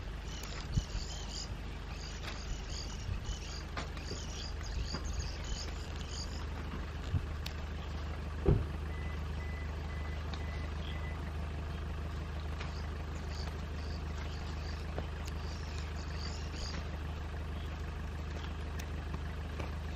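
A steady low hum from an idling vehicle engine, with insects chirping over it for the first few seconds and again later. A single sharp knock comes about eight and a half seconds in, followed by a few short faint beeps.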